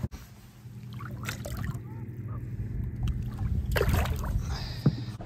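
A boat on the water with a steady low motor hum, and a few knocks and rattles on board, loudest about four seconds in.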